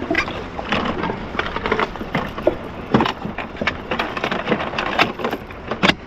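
Irregular clicks, knocks and rustling as a rider handles a jet ski moored at a dock while getting on. A few sharper knocks stand out, the loudest just before the end.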